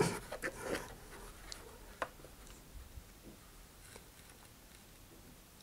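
Faint handling sounds: a few light clicks and taps as a cardboard rocket body tube and a plastic super-glue bottle are handled, over quiet room tone.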